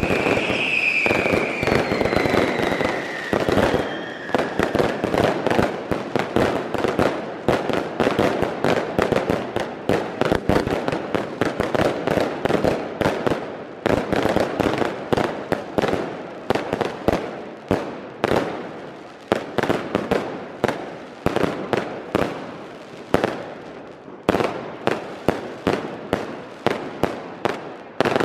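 Fireworks display going off close by: a dense run of bangs and crackle, with a whistle falling in pitch over the first few seconds. Later the bangs come about one or two a second, each trailing off.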